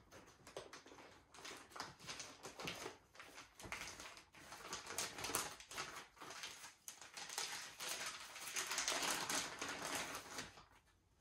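Clear plastic bag crinkling and rustling as it is handled and opened, an irregular crackle that is loudest near the end.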